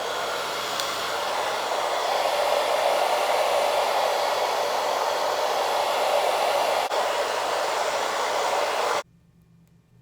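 Handheld blow dryer running steadily on a loud setting, with a brief dip about seven seconds in, then switched off about nine seconds in.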